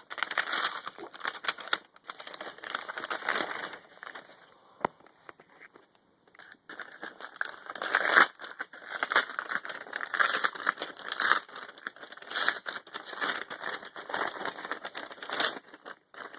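Plastic trash-bag wrapping crinkling and rustling as a package is pulled open by hand, with a short lull about five seconds in before the handling picks up again.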